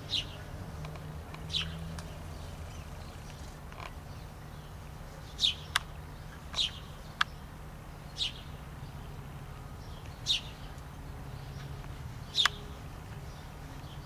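A sparrow chirping in short single chirps every second or two, over a steady low hum. Two sharp clicks come about midway.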